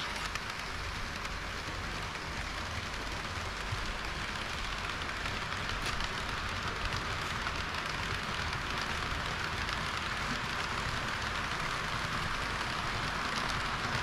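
HO-gauge model trains running on sectional track, a KiHa 40 diesel railcar set and an EH200 electric locomotive with tank cars: a steady hissing rumble of wheels and motors with faint clicking. It grows a little louder near the end as the trains pass close by.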